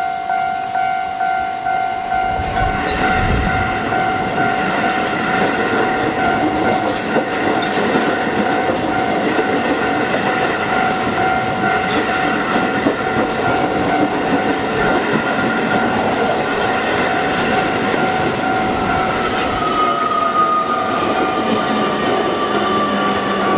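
Level crossing warning bell ringing steadily while a Keio Line electric train runs over the crossing, its wheels clattering on the rails from about two seconds in. Near the end a falling whine sounds over the rail noise.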